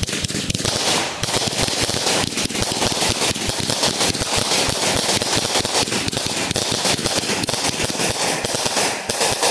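'American Trucker' consumer firework going off: a dense, unbroken run of rapid crackling pops that stops abruptly near the end.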